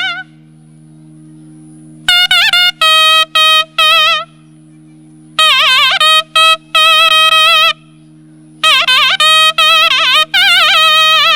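Naiyandi Melam folk music: a reed wind instrument plays three ornamented phrases with wavering pitch, separated by short pauses, over a continuous steady drone.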